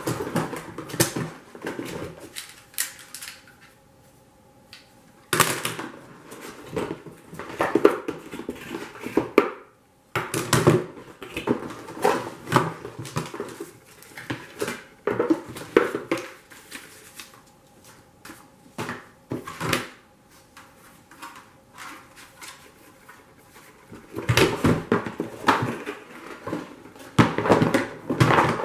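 Cardboard router box and packaging being handled: irregular rustling, sliding and knocking of the lid, cardboard inserts and bagged accessories, in bursts with short pauses.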